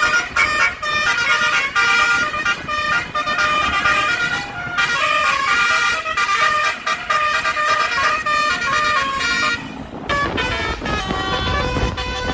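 Bus 'telolet' musical horn playing quick melodic phrases of toots, stepping from note to note with short breaks. About ten seconds in, a heavier low rumble joins the horn.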